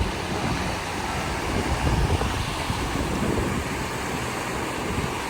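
Wind gusting on the microphone over a steady outdoor rushing noise.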